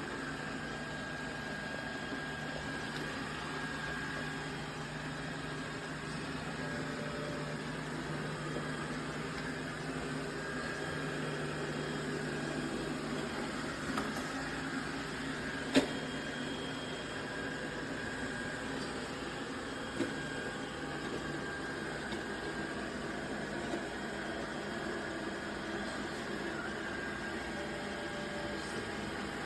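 iRobot Roomba robot vacuum running with a steady motor hum and a thin whine, and a few sharp clicks as it goes, the loudest about sixteen seconds in.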